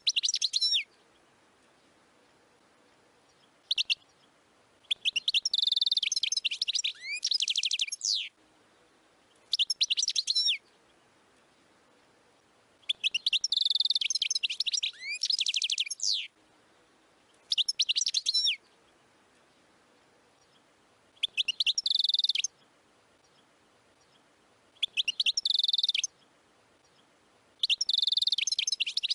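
A wild European goldfinch sings in bursts of rapid, high twittering. Each phrase lasts about one to two seconds, with pauses of one to three seconds between them.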